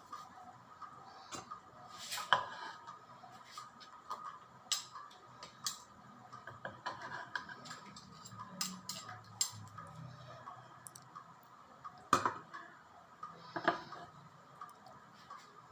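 Kitchen utensils clinking and knocking against dishes and a bowl in scattered, irregular taps, with sharper knocks about two seconds in and twice near the end.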